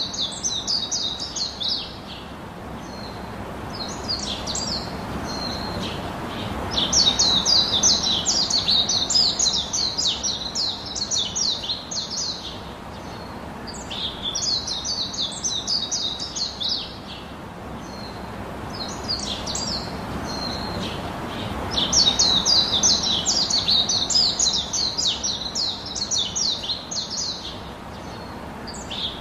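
Birdsong: bursts of rapid, high chirping trills over a steady hiss. The chirping comes and goes every few seconds and is loudest in two long stretches, about a quarter of the way in and again past the middle.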